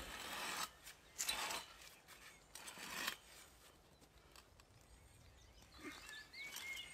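Hand post-hole auger being twisted into soil, giving three gritty scraping bursts in the first three seconds. A bird chirps briefly near the end.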